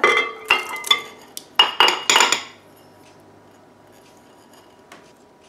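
A small bowl knocking and clinking against the glass bowl of a stand mixer about six times in quick succession as crushed pineapple is tipped and tapped out into it.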